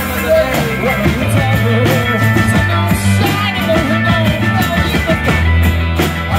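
Live rock band playing: a man singing over strummed acoustic guitar, electric guitar and a drum kit with cymbals.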